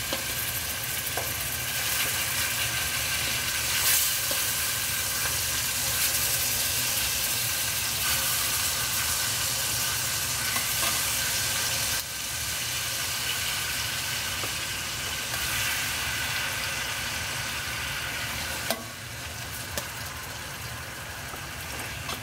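Raw chicken pieces frying in hot vegetable oil and curry powder in a pot, a steady sizzle with a few sharp clicks of metal tongs against the pot. The sizzle drops a step quieter about halfway through and again near the end.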